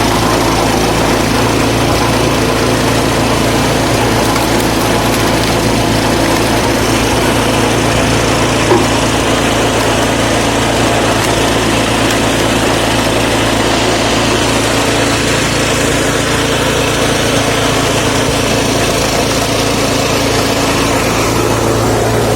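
Lifan 6.5 hp single-cylinder four-stroke petrol engine of a screw-cone log splitter running steadily, with one short sharp knock about nine seconds in.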